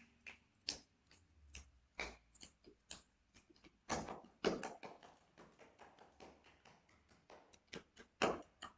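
A quiet series of irregular light clicks and taps, a few of them louder.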